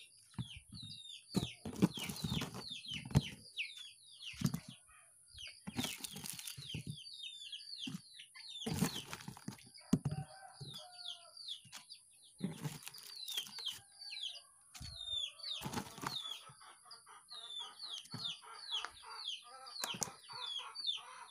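Knocks and rustles of tomatoes and chayote being handled between a woven plastic basket and a plastic basin, several sharp knocks standing out. Through it, birds chirping rapidly with many short, high, falling chirps, over a steady high hiss.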